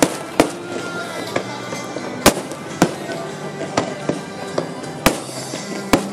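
Aerial fireworks shells bursting overhead: about eight sharp bangs at uneven intervals, a few of them very loud, over music with steady held notes and a murmur of voices.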